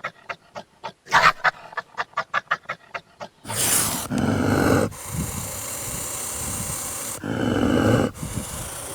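European badger growling: a rhythmic string of short, quick grunts, then about three and a half seconds in a long, harsh, deep growl.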